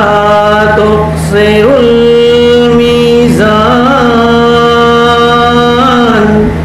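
A man's voice chanting a Shia mourning lament (soz) unaccompanied through a microphone, in long held notes that bend slowly between pitches, with a short break for breath about a second in. A steady electrical hum runs underneath.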